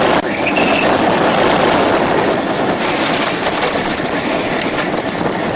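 Loud, steady rush of wind with rattling, as of storm wind and debris buffeting the armored storm-chasing vehicle; it cuts off suddenly at the end.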